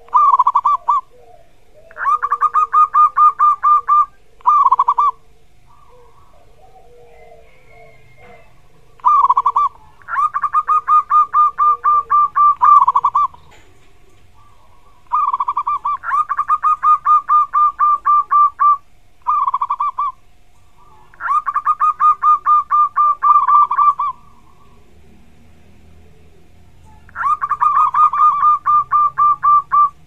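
Zebra dove (perkutut) singing: repeated bouts of its rapid, pulsing coo, each a short opening phrase followed by a longer run of quick notes, several bouts a few seconds apart.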